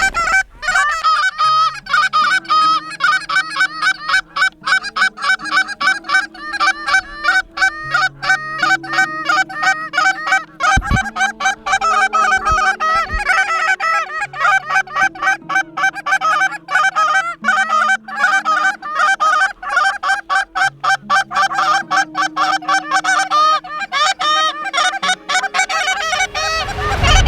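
A flock of geese honking continuously in rapid overlapping calls, over background music of slow held low notes.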